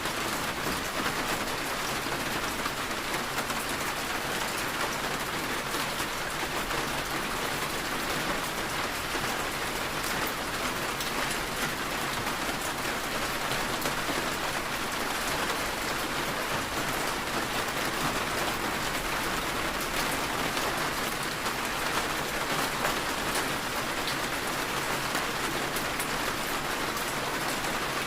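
Steady rain falling, an even hiss with fine pattering of drops, unchanging throughout.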